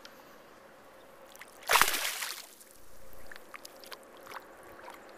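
A northern pike splashing into the river as it is released: one loud splash about two seconds in, then softer sloshing and a few small water ticks.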